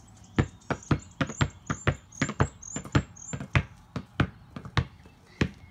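A quick, irregular run of light taps and knocks, about three a second, from an oversized tennis ball being hit with a plastic racket.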